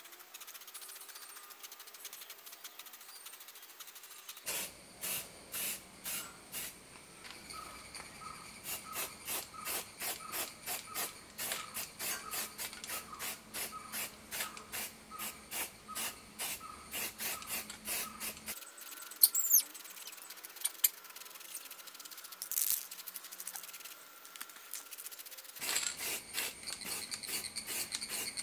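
Aerosol spray-paint can in use: a regular run of short hissing sprays, about two a second, with a quieter pause in the middle. Two sharp clicks stand out a little after the middle.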